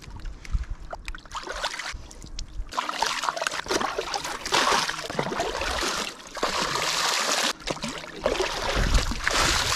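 Lake water splashing and pouring as a plucked chicken is rinsed, with a plastic bowl scooping and tipping water over it. It grows louder and busier about three seconds in.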